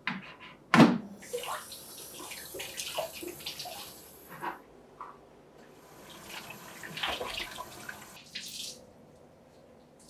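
Microwave oven door shutting with a loud thunk about a second in, then a kitchen tap running into a stainless steel sink in two spells, with small knocks as hands wash under it.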